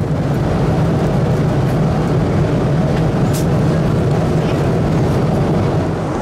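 Steady cabin noise inside an Airbus A330-200 airliner in flight: an even drone of engines and airflow, heaviest low down. A faint click about three and a half seconds in.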